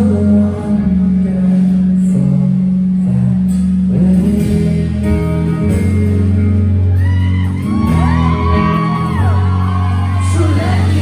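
Live rock band playing loudly in a large hall: electric guitars over a heavy bass line, with a singer's voice rising and falling in long sliding notes over the second half.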